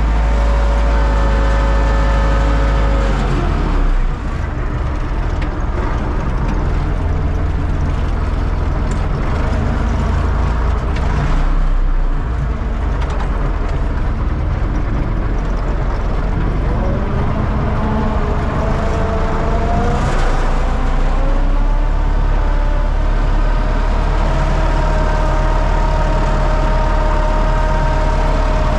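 U650 tractor's diesel engine running loud and steady. Its pitch drops about three seconds in as the revs come down, then climbs back up a little past halfway and holds.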